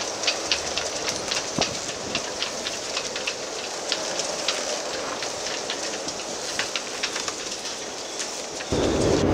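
Steady rain in a storm, with many separate drops ticking sharply close to the microphone. Near the end it cuts suddenly to louder wind buffeting the microphone.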